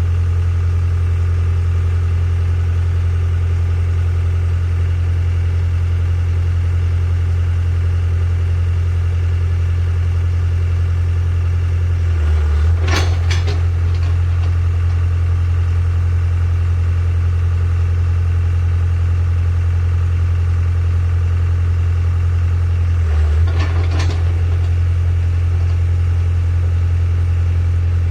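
Hitachi EX60 excavator's diesel engine running steadily at idle. Twice, about halfway through and again near the end, the engine note briefly dips and a short burst of clattering noise rises over it.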